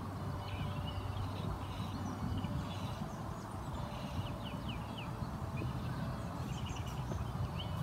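Small birds chirping and twittering at intervals over a steady low rumble.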